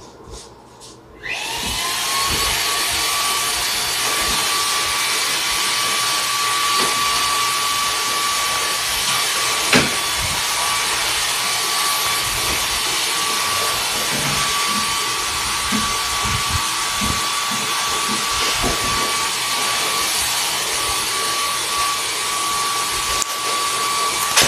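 A household appliance's electric motor starts about a second in with a rising whine, then runs loudly and steadily with a high whine over a rushing noise. There is a sharp click near the middle and a few low bumps.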